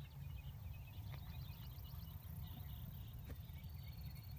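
Open-air ambience: a low, uneven wind rumble on the microphone, with a quick run of high chirps about a second in and scattered high chirping after.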